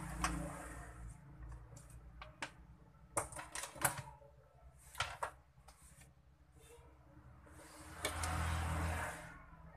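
Small clicks and taps of plastic gaming-headset parts and a cable being handled on a workbench, with a longer scraping shuffle about eight seconds in as the plastic earcup cover is moved.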